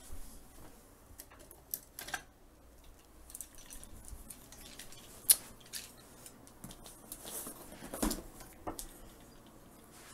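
Hands handling a plastic Classics Optimus Prime action figure: scattered small clicks and light knocks. There is one sharp click about five seconds in and a duller knock near eight seconds.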